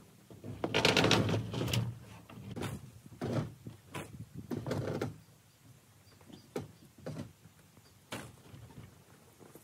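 Pop-up camper trailer creaking and clunking as a winch line drags it. There is a loud cluster of rattling knocks about a second in, then a few more bangs and scattered lighter knocks.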